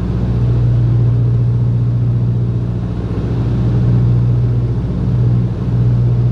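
Beech 18's twin radial piston engines running steadily at approach power, heard from inside the cabin as a deep, even drone with airflow noise over it. The level dips slightly twice, about three seconds in and near the end.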